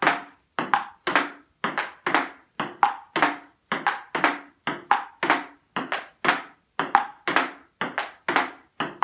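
A table tennis ball in a steady solo rally: it is struck by a paddle, bounces on the table and knocks off a 12 mm MDF return board, giving a quick, even run of sharp pings, about three a second.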